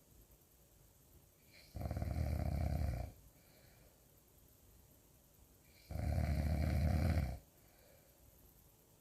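Snoring: two long snores, each about a second and a half, coming about four seconds apart, with quiet breathing between.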